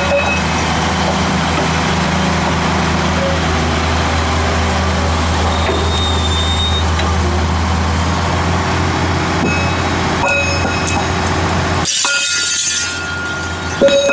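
A tracked excavator's diesel engine running steadily as the machine works a lifting magnet. About twelve seconds in, the engine drone drops away and a hiss with a few steady high tones takes over.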